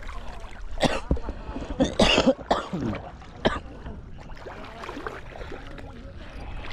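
A person coughing and clearing the throat a few times in the first few seconds, then quieter.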